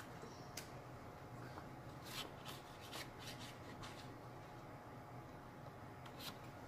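Sheet of printed paper being handled: a few faint, short rustles and clicks, clustered about two to four seconds in.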